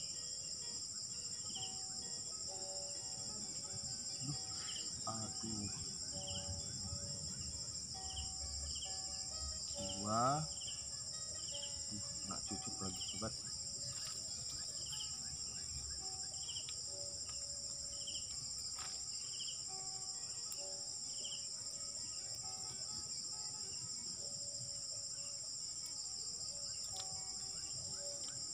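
Steady high-pitched insect chorus, with a short chirp repeating about once or twice a second through much of it. About ten seconds in, a single brief rising call stands out as the loudest sound.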